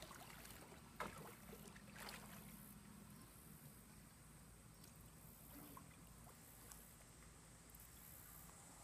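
Near silence at a pool, with a couple of faint splashes from a child swimming about one and two seconds in.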